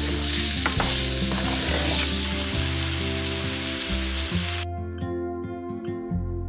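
Zucchini, onion and sweet corn sizzling as they fry in butter in a hot skillet, stirred with a wooden spoon with a few scrapes and clicks. The sizzling cuts off suddenly about four and a half seconds in, leaving soft background music that runs underneath throughout.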